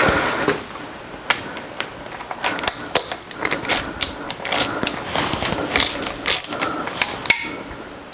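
Hand ratchet clicking in short, irregular runs while tightening connecting rod cap bolts by hand, drawing the cap down evenly onto its interference fit.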